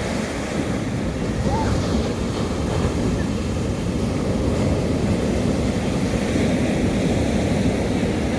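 Sea surf washing onto a beach, a steady rushing wash with low rumble from wind buffeting the microphone.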